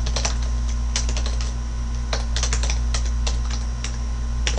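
Computer keyboard typing: quick, irregular key clicks as a terminal command is typed, over a steady low electrical hum.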